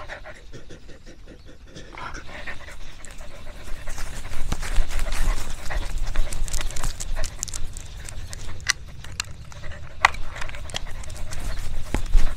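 Dog panting, with scattered clicks and rustles.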